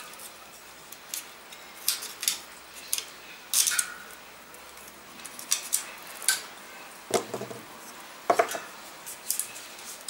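Tubeless rim tape being pulled off its roll and pressed into a bicycle rim: scattered sharp clicks and rustles of handling, with two heavier knocks about seven and eight seconds in.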